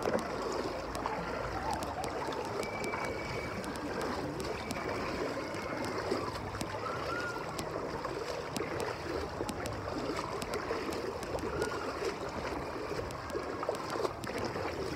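Water in a lazy river sloshing steadily around the legs of people wading through it, with small splashes.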